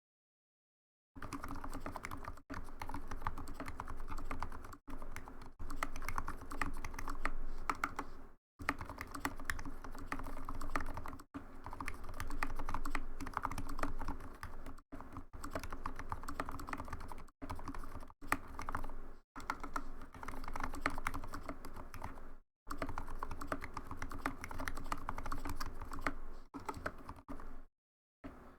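Steady typing on a mechanical keyboard with lubed, filmed Gateron switches: a fast, continuous run of key clacks. It starts about a second in and drops out briefly several times.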